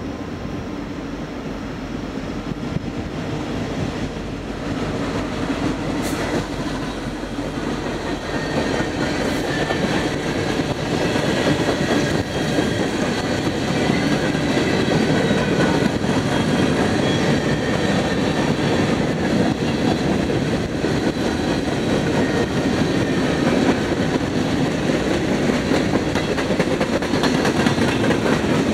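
Diesel-hauled freight train passing close by. It grows louder over the first dozen seconds as the locomotive comes on, then covered hoppers and flatcars roll past with a steady rumble of steel wheels on the rails.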